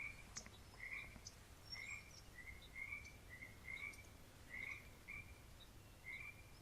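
Faint nature-sound background: short chirping animal calls repeating about once or twice a second, over a faint low hum.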